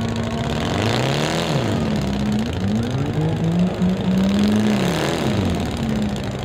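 Several four-cylinder demolition derby car engines revving, their pitches rising and falling and overlapping as the cars push and manoeuvre on the dirt.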